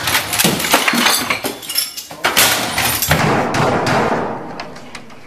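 A computer keyboard and equipment being beaten and smashed in a rage: a rapid run of hard bangs and crashes that thins out and gets quieter toward the end.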